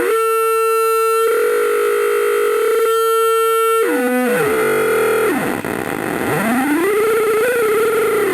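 Homemade six-oscillator drone machine sounding a steady buzzy electronic tone that goes rough and noisy for a second or two. About four seconds in it breaks into stepping, sliding pitches, then a wailing tone that rises and falls.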